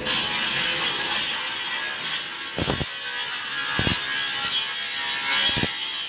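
Woodworking machine cutting timber: a loud, steady high-pitched hiss that sets in suddenly, with three short knocks in the second half.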